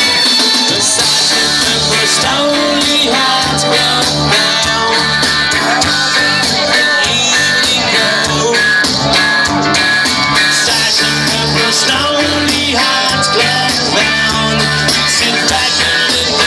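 Live band playing loud amplified rock music, with electric guitars, drums and a singing voice, heard from among the crowd.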